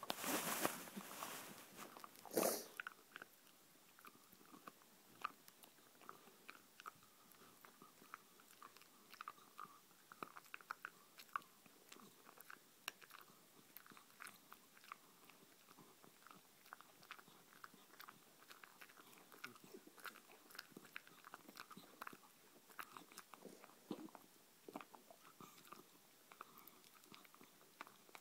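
Beagle chewing a hard white chew treat: a scatter of small crunches and teeth clicks throughout, with two louder bursts of noise in the first few seconds.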